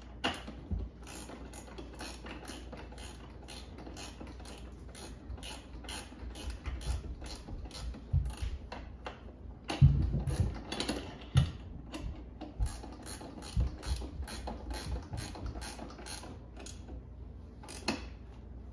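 Hand ratchet clicking in a steady rhythm, about two to three clicks a second, as a bolt is run in to fasten a harness lap-belt bracket at the outer edge of the seat. A few dull knocks come near the middle.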